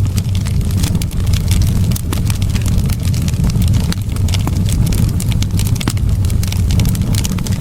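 Wood fire burning in a fireplace: a steady low rumble of the flames with frequent sharp crackles and pops.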